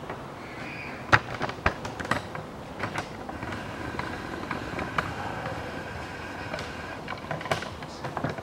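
Work noise around a bare engine on a stand: scattered light clicks and knocks, the loudest about a second in, over steady background noise.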